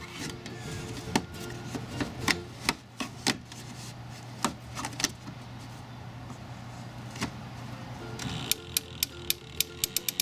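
DeWalt cordless drill turning a ShortCut auto glass tool's winder, reeling in the cutting string through the urethane holding a truck's back glass. A low steady hum with scattered sharp clicks, then quick, even ratchet clicking that speeds up near the end.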